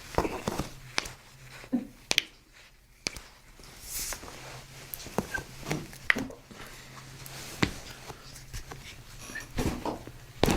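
Toe and ankle joints cracking under a chiropractor's hands: scattered sharp pops at irregular moments, with soft rustling of handling between them.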